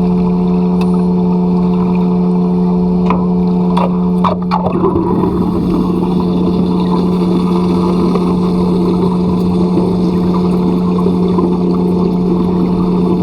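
An engine or motor running at a steady pitch, with a few sharp clicks about three to four seconds in, after which a rougher rushing noise joins the drone.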